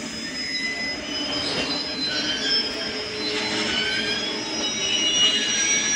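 Steel train wheels squealing against the rails: several high squeal tones that come and go over a steady noise of a train on the move.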